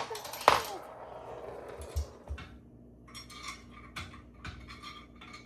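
Metal parts of a table saw's rolling stand clanking and rattling as it is put together: one sharp knock about half a second in, then scattered light clicks and rattles.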